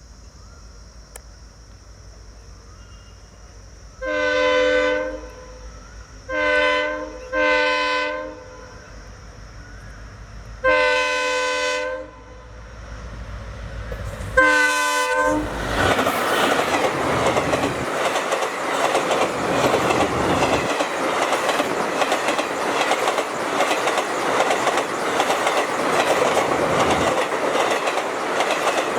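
WDM-class diesel locomotive sounding its horn in five blasts, two of them short and close together, over a low engine rumble. Then the train comes past close by, with loud, dense wheel clatter on the rails.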